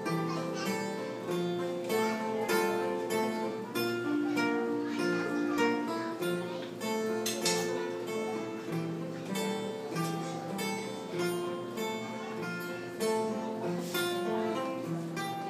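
Acoustic guitar strummed in a steady rhythm, about two strums a second, moving through chord changes, with no voice over it.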